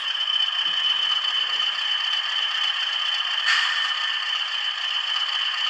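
OO gauge Bachmann Class 20 model diesel locomotive running with DCC sound: the decoder's diesel engine sound plays steadily through the model's small on-board speaker, thin with no bass, over the clatter of its motor and gears. A short brighter hiss comes about three and a half seconds in.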